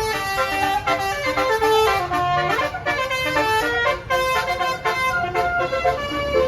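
Tour bus basuri musical air horn (telolet) playing a fast melody, pitched notes stepping up and down every quarter second or so without a break.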